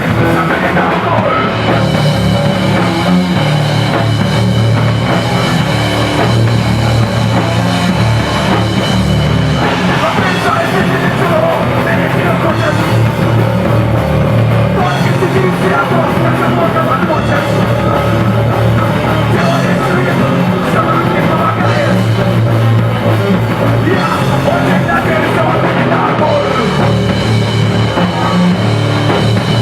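Loud live rock band playing, with drum kit and a heavy, steady low end.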